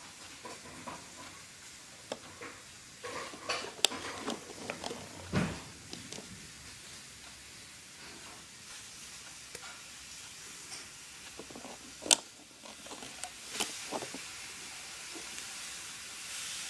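Plastic loom pegs and a hook being worked with rubber loom bands: scattered small clicks and scraping as bands are stretched and hooked, with a few sharper plastic clicks.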